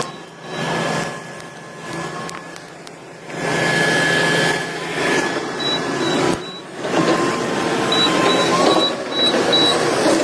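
Heavy machinery working, a mechanical whirring that rises and falls in loudness, with a rapid high beeping that pulses briefly midway and again for about two seconds near the end.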